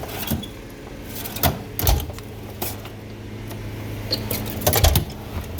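Drawers of a Snap-on Epiq roll-cab toolbox sliding and shutting, with several sharp knocks and clicks of metal and tools, the loudest pair near the end. A faint low hum runs underneath.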